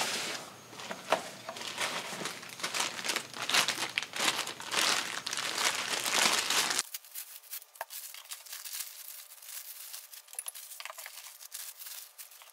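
Plastic bags crinkling and rustling as connecting rods are unwrapped by hand, with scattered light clicks. The rustling is loudest in the first seven seconds, then turns quieter.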